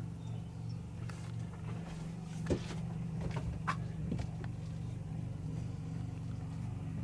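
A small motor humming steadily at a low pitch, with a few light knocks and clicks near the middle.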